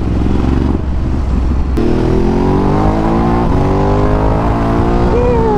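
Ducati DesertX's 937 cc Testastretta twin-cylinder engine running under way, easing off briefly about a second in and then pulling hard, its pitch rising steadily as it accelerates.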